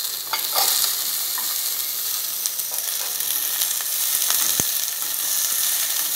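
Cubed potatoes and chopped green beans sizzling as they sauté in a little oil in a steel pan, stirred with a wooden spoon that scrapes and taps against the pan, with one sharper knock about four and a half seconds in.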